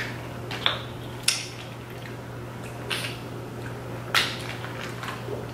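Four short, sharp cracks and crinkles of crab shell and plastic boil bag as seafood is picked apart by hand, over a steady low hum.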